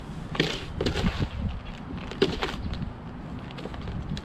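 Wet concrete being pulled and scraped along the bottom of a mortar pan during hand mixing: a series of irregular scrapes and knocks.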